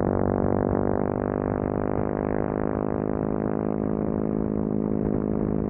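Motorcycle engine running at steady revs under way, a constant droning exhaust note.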